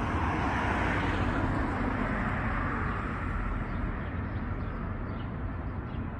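Street traffic: a vehicle passing by, swelling over the first second or two and fading away by about four seconds in, over a steady low rumble of the city.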